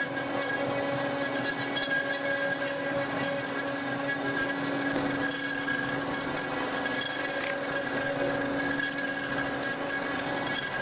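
Workshop machinery running steadily: an even hum with a higher whine over a noisy rush, the low hum cutting off near the end.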